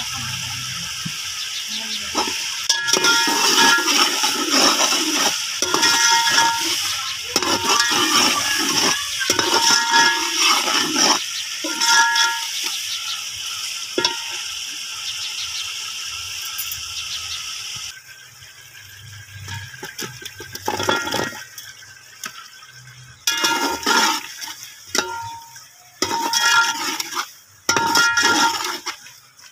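Water poured into a hot metal cooking pot of frying masala, a steady rushing hiss, with a metal slotted spoon clinking and scraping against the pot. The pouring cuts off abruptly about two-thirds of the way in, leaving separate clinks and scrapes of the spoon in the pot.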